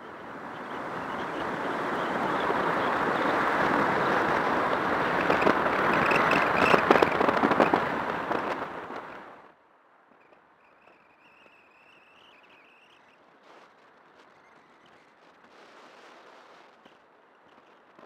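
Wind rushing over the microphone of a camera mounted outside a moving car. It swells over several seconds into heavy crackling buffeting, then cuts off suddenly about nine seconds in, leaving only faint road noise.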